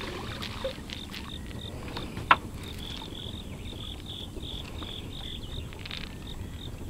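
Insects chirping in an even pulsing rhythm, about three chirps a second, over a low steady outdoor rumble, with one sharp click a little over two seconds in.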